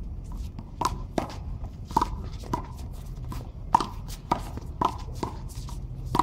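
A small rubber handball being smacked by gloved hands and bouncing off the concrete wall and floor during a rally: a string of sharp slaps at uneven intervals, roughly one every half second, along with the scuff of sneakers on the court.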